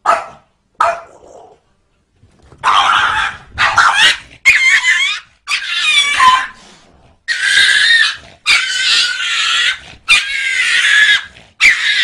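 Two short barks, then a chihuahua snarling and growling in a run of long, high-pitched bouts with wavering pitch, a threat display.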